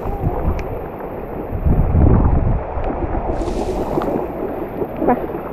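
Water sloshing and splashing as someone wades through a flooded rice paddy, under a low wind rumble on the microphone that swells about two seconds in.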